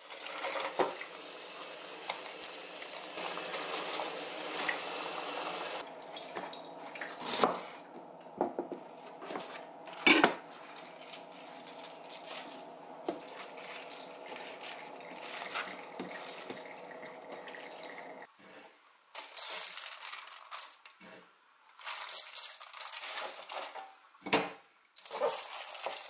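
Kitchen sink work while washing young napa cabbage: a tap runs steadily for the first few seconds, then a stainless steel bowl and colander knock and clatter, and in the last third come irregular bursts of water splashing as the leaves are rinsed by hand.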